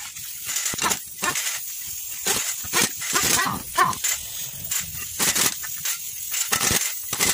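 A dog barking repeatedly, in short barks at an irregular pace.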